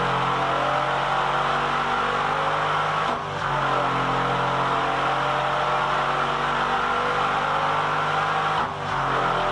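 Mercedes-AMG 5.5-litre V8 running steadily under load on an engine dynamometer, at a nearly constant speed, with a brief dip in level about three seconds in and again near the end.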